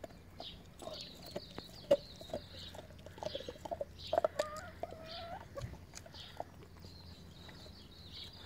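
Domestic hen clucking in short soft calls, with one longer drawn-out call about four seconds in. Scattered sharp clicks run through it.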